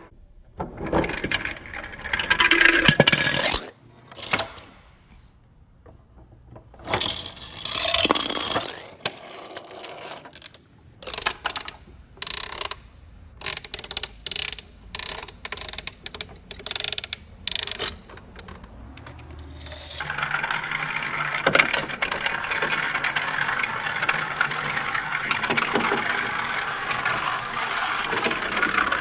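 Plastic toy train-set pieces handled, with irregular clicks and rattles. About two-thirds of the way in, a small geared motor starts a steady whir.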